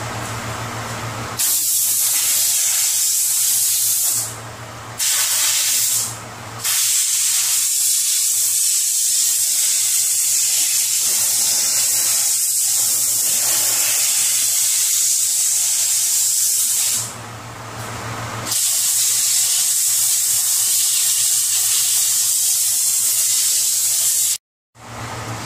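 Compressed-air blow gun hissing in long blasts with a few short breaks, blowing dust out of a car's panel seams ahead of painting.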